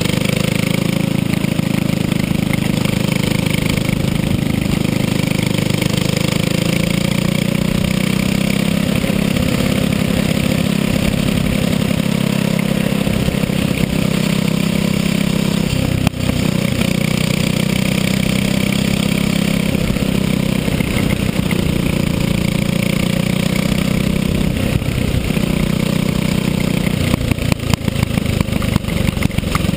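Racing go-kart engine heard from on board, running hard and steady at speed. It dips briefly about halfway through and turns uneven near the end.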